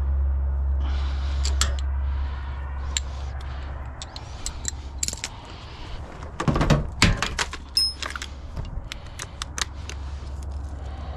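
Irregular metallic clicks and clinks of hand tools working on bolts, with a cluster of louder clanks about six to seven seconds in. A low hum fades away over the first few seconds.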